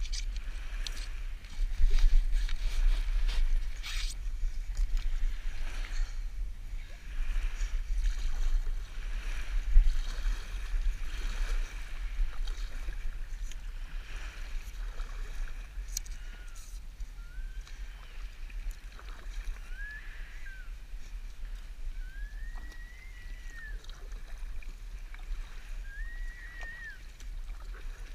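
Double-bladed kayak paddle dipping and splashing in shallow water, with water sloshing against the hull of a KXOne Slider 410 inflatable kayak, over a steady low rumble. In the second half come a few short high calls that rise and fall.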